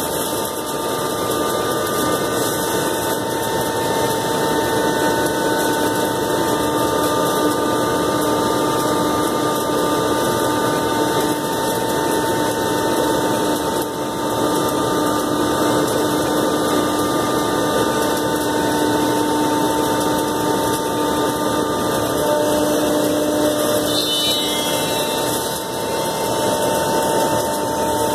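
Komo VR510 Mach 1 CNC router spindle running steadily as it routes grooves into a white sheet. A steady whine sits over continuous cutting noise, with brief dips about halfway through and near the end.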